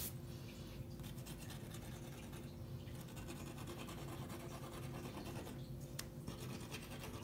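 Faint, steady scratching and rubbing on paper coated with wax crayon: a hand brushing off the crayon shavings that a toothpick has scraped out of the black top layer. A single small click comes about six seconds in.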